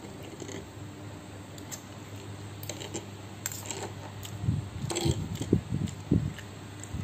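Metal spoon and fork clinking and scraping against a tray while cutting a fried egg, a series of light clicks. About four and a half seconds in come several dull low thumps. A steady low hum runs underneath.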